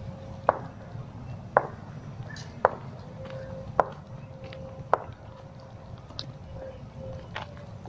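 Footsteps crunching on the gravel ballast of a railway track, about one step a second, with smaller crunches between, over a steady low background noise.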